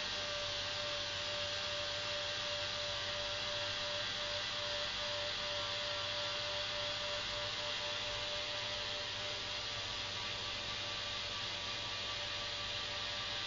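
The two small propeller motors of a model aircraft run steadily: an even hum with one held tone and a hiss over it.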